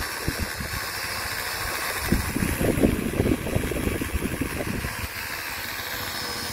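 Small foldable quadcopter drone hovering overhead, its four propellers giving a steady high buzz. From about two to five seconds in, a louder low buffeting rumble hits the microphone.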